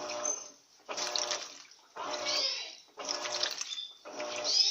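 Electrolux LT13B Turbo 13 kg top-loading washing machine agitating at the high water level: water churns and sloshes in surges about once a second as the agitator swings back and forth, each stroke carrying a motor hum.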